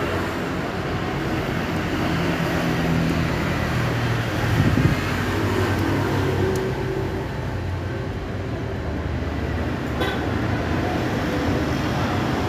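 Steady drone of motor vehicle engines, as of road traffic going by, swelling briefly near the middle; a faint click about ten seconds in.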